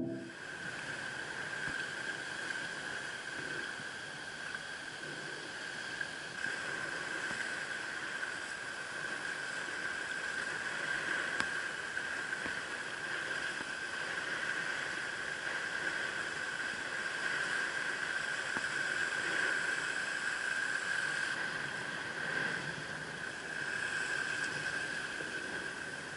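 Surf and shallow water washing over a coral reef flat, an even hiss with a steady high-pitched tone over it.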